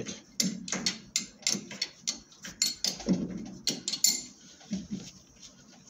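Irregular metallic clicks and light knocks as a mounting nut is unscrewed from the back of a lathe chuck, with the heavy chuck held in hand against the spindle. The clicking thins out and grows faint about four seconds in.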